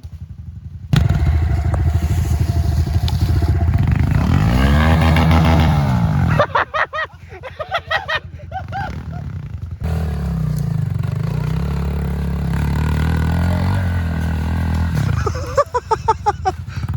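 Small pit bike engine running hard in low gear, labouring up a steep hill. Its pitch rises and falls about four seconds in, and it runs steadily again later, with shouting voices in between and near the end.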